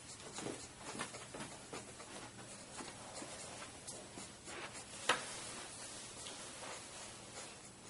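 Marker pen drawing on paper: a run of short scratchy strokes as lines are inked, with one sharper click about five seconds in.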